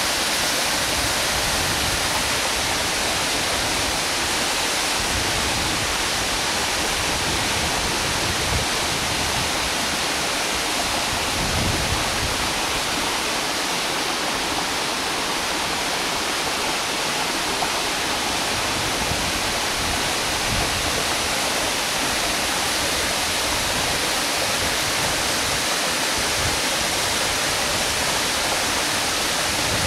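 Waterfall and the rocky stream below it: a steady, even rush of falling and running water.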